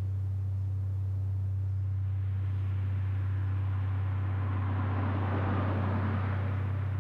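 A car drives past on the road: its tyre and engine noise swells over a few seconds, is loudest a little past the middle, then fades. A steady low hum runs underneath throughout.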